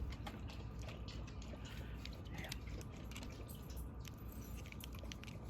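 Faint, irregular clicks and scratches of plastic Roomba parts being handled and worked at by hand, over a low steady hum.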